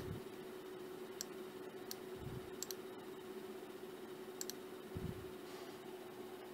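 Computer mouse clicking about five times, each click a sharp press-and-release pair, spaced irregularly, over a faint steady hum, with a couple of soft low thumps.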